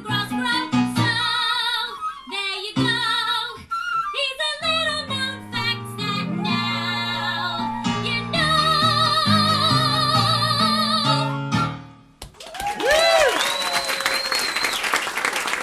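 Three singers, women's and men's voices, singing with piano accompaniment, closing on a long held chord with vibrato. The music stops about twelve seconds in and the audience applauds, with a cheer and a whistle.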